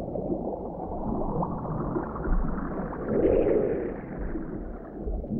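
Muffled underwater ambience: low, dull gurgling and bubbling of water, with a louder burble about three seconds in.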